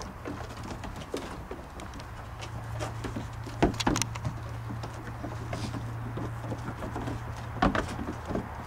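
Goats' hooves clattering on a wooden deck as they scuffle, with a few sharp knocks, two close together about three and a half seconds in and two more near the end, over a steady low hum.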